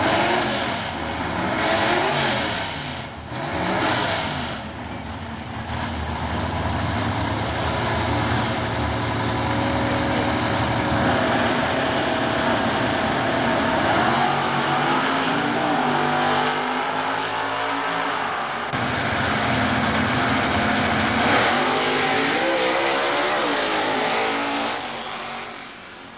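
Super Stock drag-racing car engines revving on the starting line, then running at full throttle down the strip, the pitch climbing after each gear change. The sound fades near the end.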